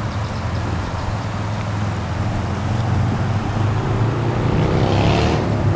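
Road traffic: a motor vehicle's engine hum with a steady rushing noise over it. About four seconds in, an engine note rises in pitch as a vehicle accelerates or passes.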